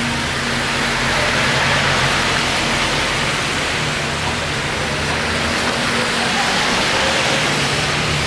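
Steady low engine hum under a loud, even wash of street and traffic noise.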